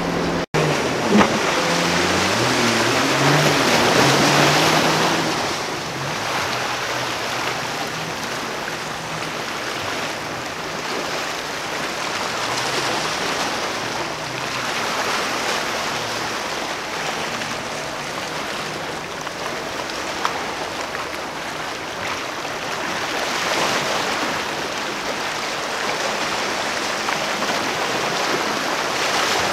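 Steady wash of waves and wind, swelling and easing a couple of times. A boat's engine hum runs faintly beneath it in the first few seconds.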